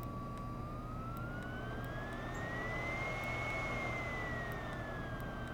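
BioLite Campstove 2's electric blower fan whining as it is stepped through its speed settings. Its pitch holds steady, glides up as the fan speeds up, dips, then climbs again, over a steady low hum.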